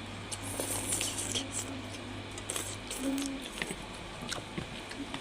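Close-up eating sounds of a mukbang: wet chewing and squelching of seblak with scattered small clicks. A low steady hum underneath stops about three seconds in.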